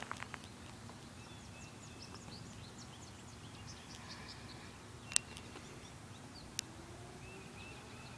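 Small birds chirping and calling over a faint steady outdoor rumble, with two sharp clicks about five seconds in and again a second and a half later.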